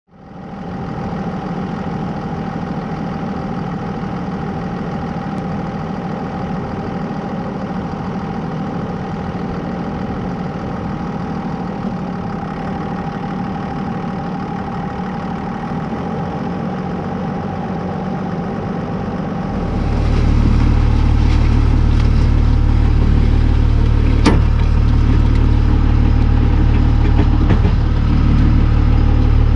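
Vehicle engine running steadily. About twenty seconds in, a much louder low rumble sets in as the vehicle tows a tire drag over a dirt road, with one sharp click a few seconds later.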